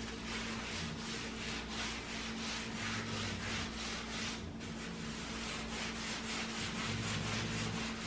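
Cloth rag rubbed back and forth over a bare wood panel, working in a dark wood finish: a steady run of swishing strokes.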